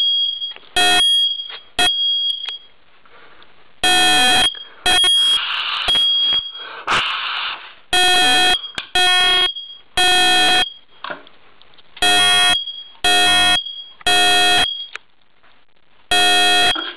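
Smoke alarm set off by cigarette smoke, sounding a loud high beep in the temporal-three pattern: three half-second beeps, a pause of about a second and a half, then again. It opens with a few short, uneven chirps before settling into the pattern.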